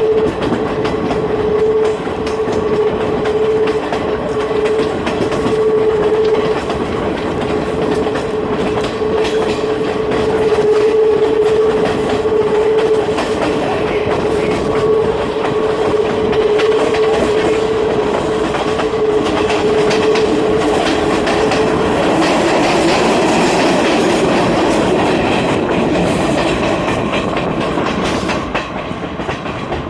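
Passenger train running along the track, its wheels clicking over rail joints under a steady rumble. A steady whine sits over the rumble and fades out about 22 seconds in.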